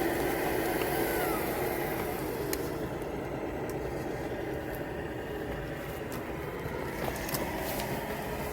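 Electric motor and gear drive of a 3D-printed RC crawler truck whining steadily as it crawls over the trail, with a few sharp clicks.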